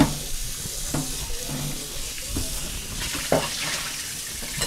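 Kitchen tap running into a metal sink with a steady hiss of water, broken by a few sharp knocks and clinks of things being handled in the sink.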